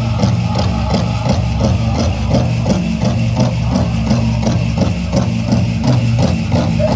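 Powwow drum group playing for a jingle dress dance: a big drum struck in a steady, fast, even beat under sustained singing, with a bright jingling of the dresses' metal cones on each beat.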